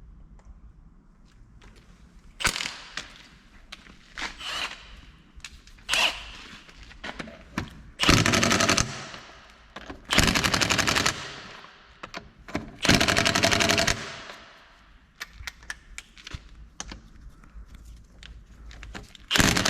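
Impact wrench hammering wheel nuts on with a 19 mm socket, in several short bursts and three longer ones of about a second each, the last near the end.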